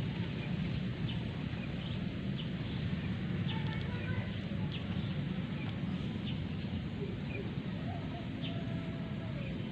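Outdoor ambience: a steady low rumble with birds calling in the background, scattered short high chirps and a few longer sliding calls, one near the end.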